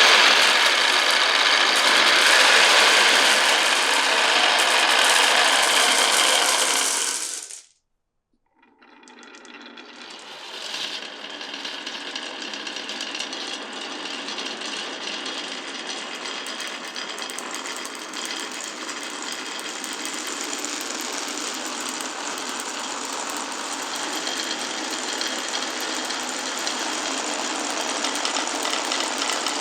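Marbles rolling and clattering down a wooden marble run, a dense rapid rattle. It cuts off suddenly about seven and a half seconds in, and after about a second of silence a new stretch of rattling builds up and goes on steadily.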